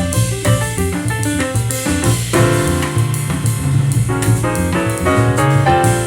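Piano and drum music played back through a homemade Bluetooth speaker with two 4-inch Dayton Audio woofers and a Dayton Audio tweeter, heard in a living room.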